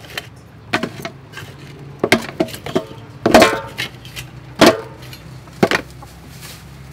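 Clam shells knocking against a steel plate and an aluminium bowl as the clams are picked up and put in one at a time: about eight sharp knocks, a few with a short metallic ring, the loudest a little before the middle.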